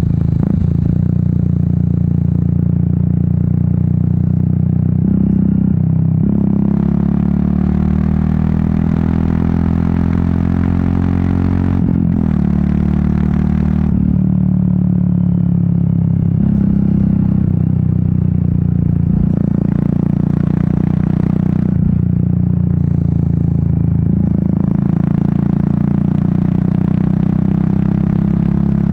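Royal Enfield Meteor 350's single-cylinder engine and exhaust under way, the pitch climbing steadily from about six seconds in and dropping abruptly near the middle, then rising and falling with the throttle. Wind rushing over the microphone comes and goes.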